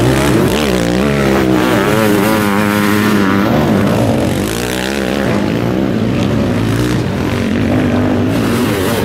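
Sidecar motocross outfits' engines running hard on the throttle as they pass, the engine note rising and falling repeatedly as the riders accelerate and back off through the corner.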